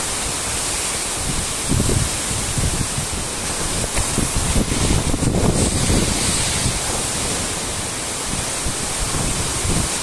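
Waterfall plunging onto rocks close by, a steady rushing roar of falling water, with gusts of wind buffeting the microphone.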